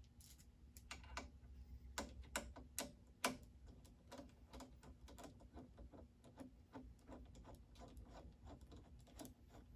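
Faint, quick metal clicks, about three a second, with a few sharper ones a couple of seconds in, as a screwdriver turns and locks down a screw on a knife-grinder surface grinder attachment's steel carriage plate.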